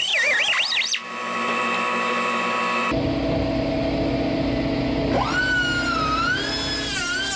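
Angle grinder with a thin cut-off wheel cutting steel: a high whine that wavers and dips in pitch as the wheel bites into the metal and eases off, with steadier stretches in between.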